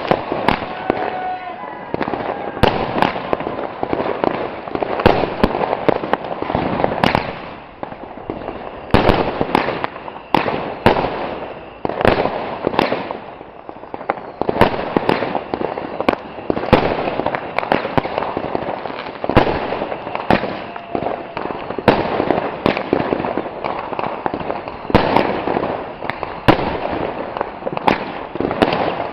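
Consumer New Year's Eve fireworks going off continuously: loud shots and bangs following each other several a second, with crackling in between.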